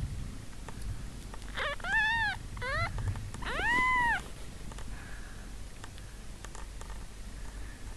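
Two-day-old kittens mewing: three high, arching cries between about one and a half and four seconds in, the last one the longest, then quiet.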